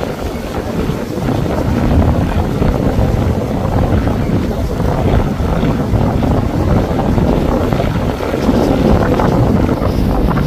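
Wind buffeting the microphone: a loud, low, rushing rumble that swells and dips, with no clear sound standing out from it.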